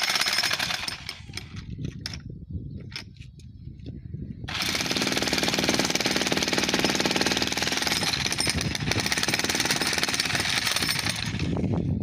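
Corded electric demolition hammer (breaker) chiselling into the edge of a reinforced concrete slab, a rapid stream of hammer blows. It runs unevenly for the first few seconds, then hammers steadily and loudly from about four and a half seconds in, stopping just before the end.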